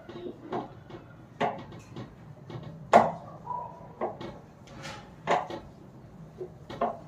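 Car scissor jack being cranked by hand with its rod handle to lift the car: irregular metal clanks and knocks about every half second, the loudest about three seconds in.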